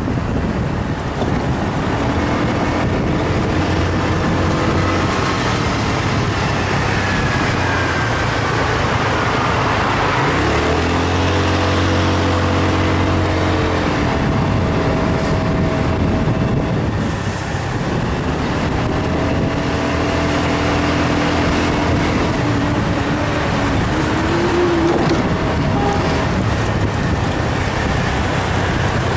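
Motor vehicle driving through city traffic: the engine runs with its pitch rising and falling as it speeds up and slows, over steady wind and road noise.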